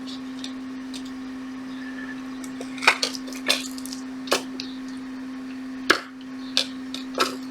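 A handful of sharp clicks and taps from tools handling a MacBook logic board after soldering, the loudest about three and six seconds in, over a steady low hum.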